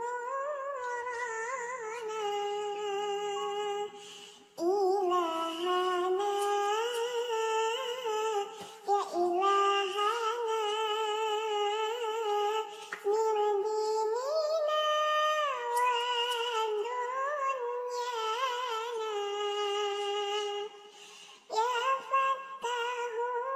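High-pitched singing voice, presented as the kitten's, singing a shalawat melody in long wavering phrases with short breaks between them.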